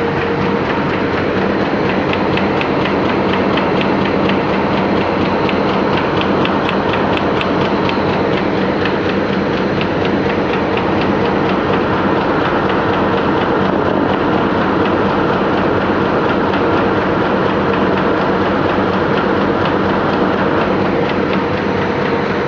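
Heidelberg Speedmaster XL 106-8-P press with its CutStar reel sheeter running in production: a steady, loud mechanical din, with a fast, regular clicking over the first several seconds.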